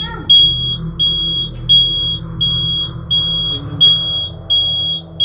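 Household smoke detector alarm going off: a loud, high-pitched beep repeating evenly, about three beeps every two seconds, each beep lasting about half a second.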